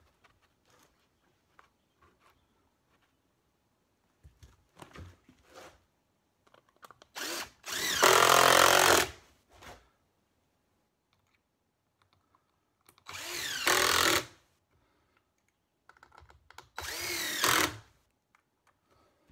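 Cordless drill running in three short bursts, its motor pitch rising and falling, turning the long screws that hold the wooden mold clamp together. A few faint knocks come before the first burst.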